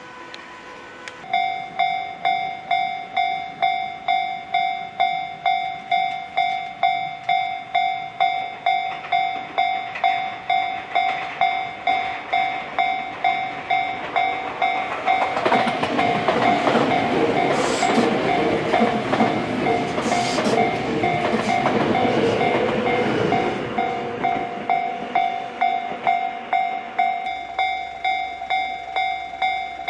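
A Japanese level crossing alarm starts ringing about a second in, a steady pulsing tone about one and a half times a second. From about halfway a Tobu Railway electric train runs across the crossing, its wheels clattering over the rail joints and briefly drowning the alarm, which keeps ringing after the train has gone by.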